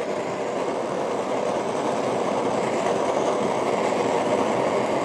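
Handheld gas kitchen torch burning continuously, a steady rushing flame noise, as it chars the cheese topping of a baked pudding.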